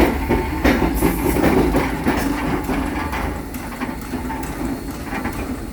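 Southern Railway 4501, a 2-8-2 steam locomotive, moving slowly with its train, with rumbling and several sharp clanks in the first second or so. The sound eases somewhat after about three seconds.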